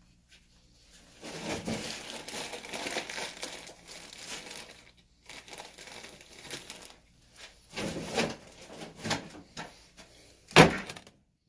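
Crinkling, rustling handling noise, strongest for a few seconds early on and then in short spurts, followed by one sharp knock near the end.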